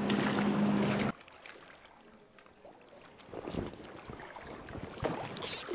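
Outboard motor of a boat on the river running with a steady hum, cutting off abruptly about a second in. Then quieter, with a few soft splashes of wading in shallow water.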